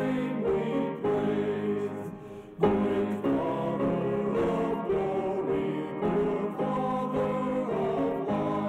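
A small ensemble of men's voices singing a hymn in harmony, phrase after phrase, with a brief break between phrases about two and a half seconds in.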